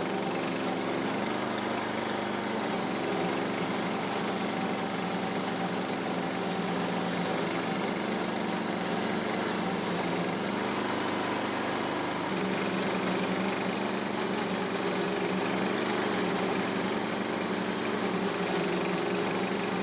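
Small gasoline engine of a Harbor Freight bandsaw mill running steadily, its pitch dipping and rising a little as the mill's blade works through a log.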